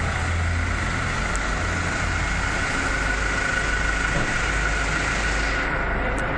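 Fire truck engines idling steadily, a low hum with a steady high whine running over it.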